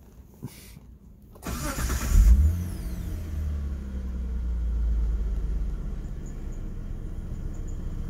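1996 Mitsubishi 3000GT's V6 engine cranked by the starter about a second and a half in, catching with a brief rev, then settling into a steady idle.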